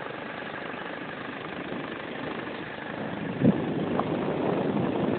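Steady vehicle engine and travel noise heard from on board, growing louder after about three seconds, with a single knock about three and a half seconds in.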